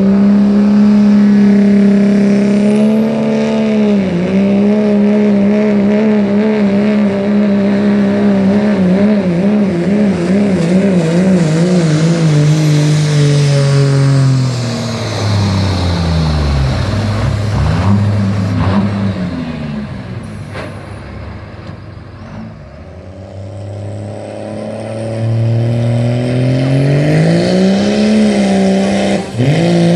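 Diesel pickup truck engine at full throttle under load on a truck pull: a loud, steady high-revving drone that wavers slightly. About halfway through the pitch drops and the sound falls away as the pull ends. Later the engine revs climb again and hold steady near the end.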